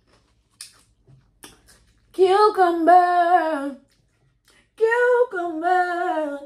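A woman singing two drawn-out phrases, the pitch bending slowly, about two seconds in and again near the end, with a couple of faint clicks before them.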